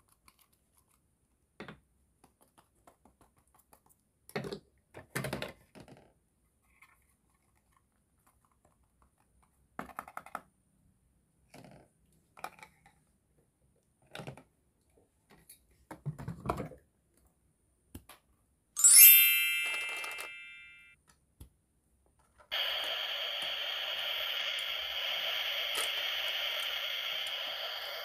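Light clicks and taps of plastic toy kitchen pieces being handled and set down. About two thirds in, a bright chime sound effect rings out and fades; then a steady hissing sizzle effect runs for the last few seconds as the toy food cooks on the toy grill.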